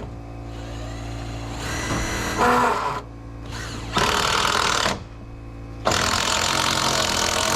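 Power drill driving long screws into wooden roof framing in three runs, the last and longest about three seconds, over a steady low hum.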